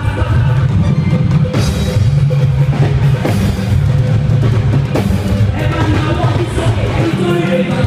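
Loud music with a drum kit and a heavy bass line.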